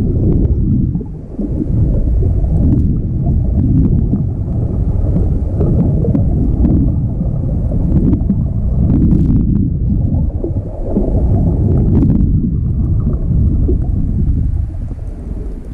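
Muffled low rumble of sea water moving around a camera held underwater, swelling and easing every couple of seconds as the surge washes over the shallow bottom, with a few faint clicks.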